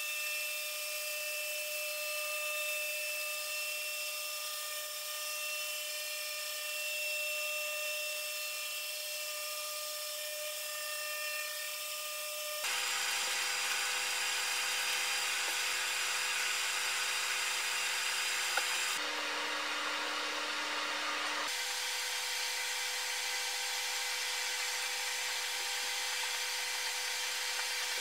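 Electric random orbital sander with a dust-extraction hose running steadily on a birch end-grain tabletop, a whir with a high hiss and several steady tones. Its tone changes abruptly about 13, 19 and 21 seconds in.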